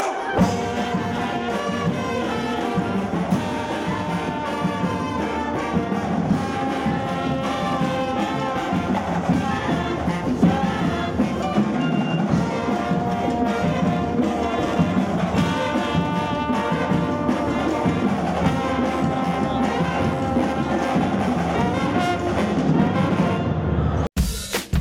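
A student band of trumpets, trombones and saxophones playing an upbeat tune. The music cuts off abruptly near the end.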